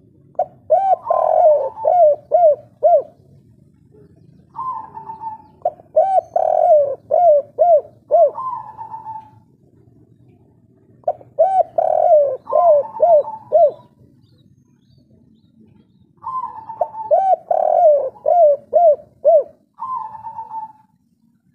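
Spotted dove (tekukur) cooing in the song type hobbyists call "kuk 3": about five phrases with pauses between them. Each phrase is a higher opening note followed by a quick run of rounded, lower coos.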